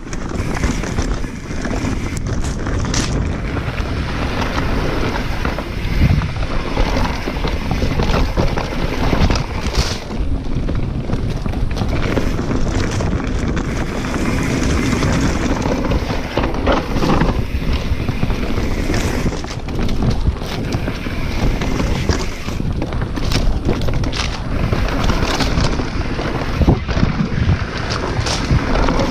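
Wind rushing over an action camera's microphone during a fast mountain-bike descent on a dry dirt trail, mixed with the rattle and scattered sharp knocks of the bike going over bumps.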